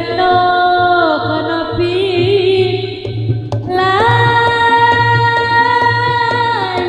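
Live Javanese jaranan gamelan music: a long held melody line that slides between notes, over a low steady drone and drum strikes that fall about twice a second in the second half.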